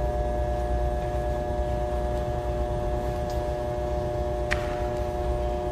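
Steady electrical hum, several even tones over a low rumble, with one brief click about four and a half seconds in.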